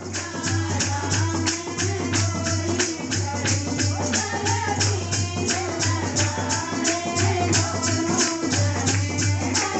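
Women singing a Hindu devotional bhajan through a microphone and loudspeaker, over a fast, even beat of jingling, rattling hand percussion.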